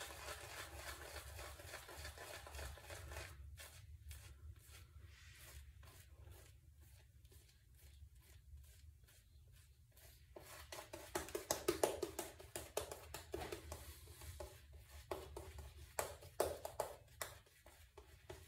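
Shaving brush swished quickly back and forth over a lathered cheek and neck, a faint run of scratchy, bristly strokes that grow louder about eleven seconds in.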